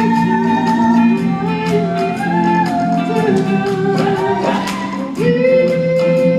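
Live pop band and singers performing a 1960s number, several voices holding long notes in harmony over a steady drum beat.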